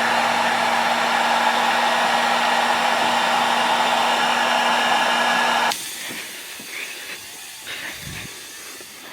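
Steady rushing air noise with a low hum, like a motor-driven blower running. It stops abruptly about five and a half seconds in, leaving much quieter scattered sounds.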